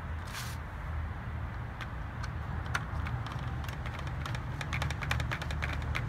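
Small metal Torx screws and a screwdriver clicking and tapping against the plastic ignition coil pack housing, with a short scrape near the start and a run of quick clicks in the second half, over a steady low background hum.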